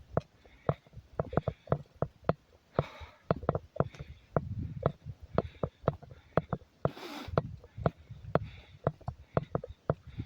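Footsteps of a hiker walking a forest trail: a run of sharp, irregular taps, several a second, with two short breathy rushes about three and seven seconds in.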